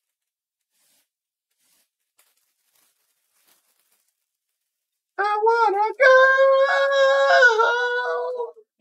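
Near silence, then about five seconds in a high-pitched voice sings: a short wavering phrase, then one long held note that stops shortly before the end.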